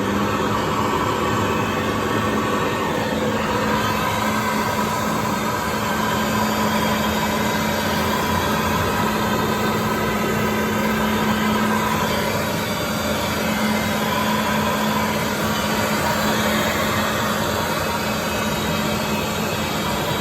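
Saber floor-care machine running steadily: a constant motor hum with a higher whine over a broad rushing noise, level and unchanging throughout.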